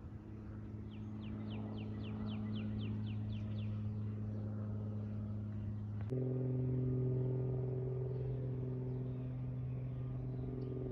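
Light propeller aircraft's piston engine droning overhead, a steady low hum. About six seconds in, the hum jumps abruptly to a higher pitch and gets louder, as at a cut to another aircraft. Between about one and three and a half seconds in, a bird sings a quick run of about a dozen short high notes.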